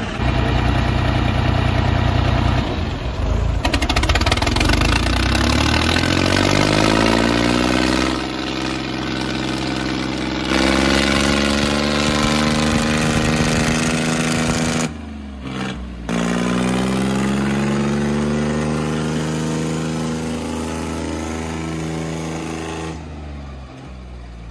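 Diesel tractor engines of a John Deere 5050 and a New Holland 3630 revving hard under heavy load in a tug-of-war, pitch climbing in long rises. The sound cuts out for about a second two-thirds of the way through, then fades near the end.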